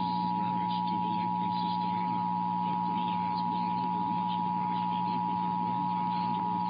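Emergency Alert System attention signal: the steady two-tone 853 and 960 Hz combination, sounding unbroken, with a low hum underneath. It announces an EAS monthly test.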